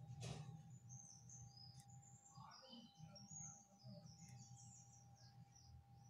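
Faint birds chirping, a run of short high notes, over a low steady electrical hum. There is a single soft tap just after the start.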